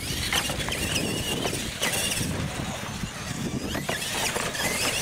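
Radio-controlled retro monster truck racing flat out after the start: its electric motor and gears give a high whine that rises and falls with the throttle, with several sharp knocks as the truck comes down off the ramps.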